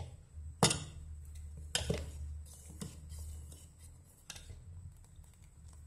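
Steel spoon stirring thickening rice kheer in a stainless-steel saucepan, clinking against the pan's side now and then: about five sharp clinks, spaced irregularly, over a low steady hum.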